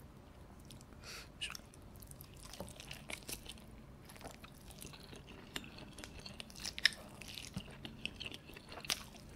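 Close-miked wet chewing and lip smacks of a person eating a soft steamed dumpling smothered in melted mozzarella and spicy sauce, with a bite partway through and irregular short clicks of the mouth throughout.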